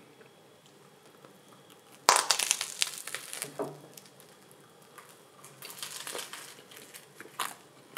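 Crusty baguette sandwich crunching as it is bitten into: a loud crackle of crust about two seconds in, followed by quieter crackles while it is chewed.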